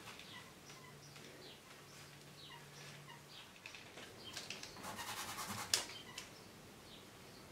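Small birds chirping faintly in the background with short repeated calls. About four seconds in comes a brief run of rapid scratchy strokes, the loudest sound, as paint is scrubbed onto the canvas; it ends in a sharp tap.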